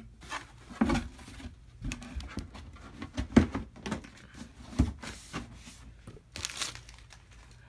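Cardboard box and packaging being handled: a few irregular dull knocks and some rustling, with a burst of crinkling near the end.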